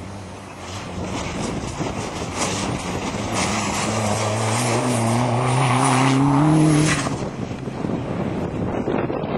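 Off-road racing 4x4's engine under hard throttle, rising in pitch and getting louder as it approaches, loudest about two-thirds of the way through, then dropping away suddenly as it passes or lifts off.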